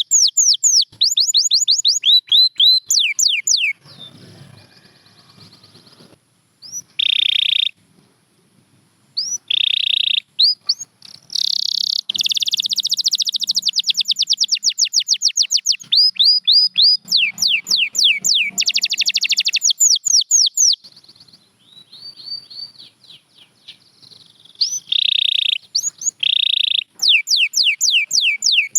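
Domestic canary singing: fast trills of rapidly repeated, falling whistled notes, mixed with dense buzzy rolls. Two short pauses break the song between phrases.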